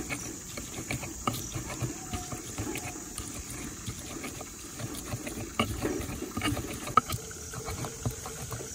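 Stone pestle crushing and grinding fresh red chillies, shallots and garlic in a rough stone mortar. It gives a wet squishing with irregular sharp knocks of stone on stone, the sharpest about seven seconds in.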